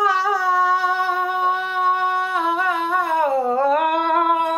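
A man's voice singing a slow vocal line into a close microphone: a long held note, a dip in pitch about three and a half seconds in, then another held note.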